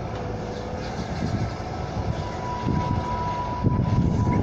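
Atlas road-rail excavator running on the railway track, its engine giving a steady low rumble. A thin steady tone comes in about halfway through, and the rumble grows louder and rougher near the end.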